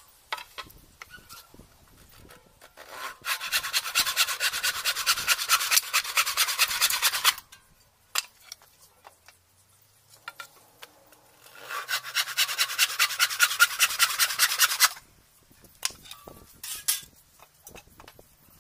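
Handsaw cutting through a wooden pallet board in two bouts of quick, even strokes, each lasting three to four seconds. A few sharp knocks of the wood being handled come between and after the bouts.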